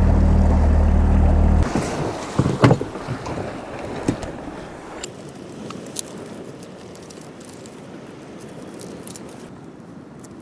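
A boat's outboard motor running steadily at low speed cuts off abruptly about a second and a half in. A few sharp knocks follow, then a steady wash of waves and wind with scattered small clicks as a knife cuts herring for bait against rock.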